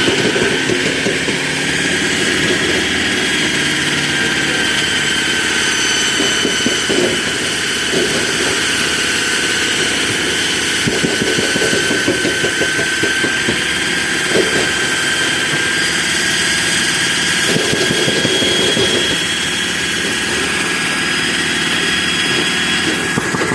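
Concrete cutting machine's engine running steadily, with a steady high whine over the rumble.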